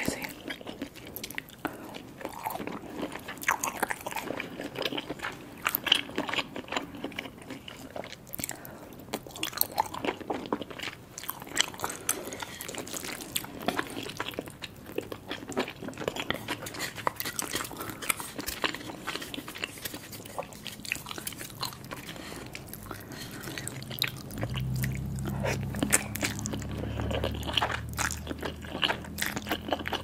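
Close-miked eating of cheesy spicy instant noodles and chewy rice cakes: irregular wet chewing, biting and lip-smacking clicks, with noodles being drawn into the mouth near the end. A low steady hum comes in about two-thirds of the way through.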